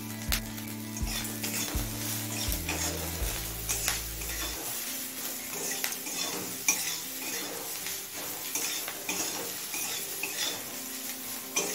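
Shrimp heads sizzling as they fry in a metal kadai, while a metal spatula stirs them with repeated scraping clacks against the pan.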